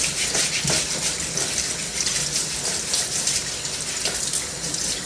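Water running steadily from a tap while a radish is rinsed under the stream, with faint irregular splashing as it is rubbed clean.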